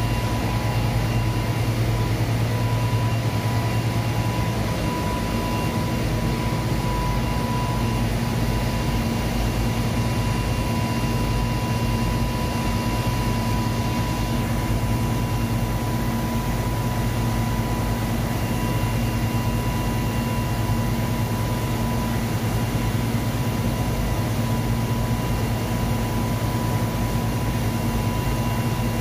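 Industrial washing machine running with its drum turning: a steady loud mechanical hum with a few constant higher whining tones over it.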